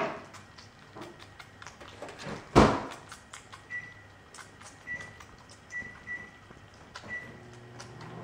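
A young kitten's paws and claws on packing-tape-covered cardboard boxes: scattered light clicks and scrapes, with a louder thump about two and a half seconds in.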